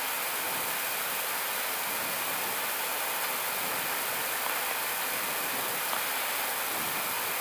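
Steady rushing hiss of air noise in an Airbus A320 cockpit on short final, even and mostly high-pitched.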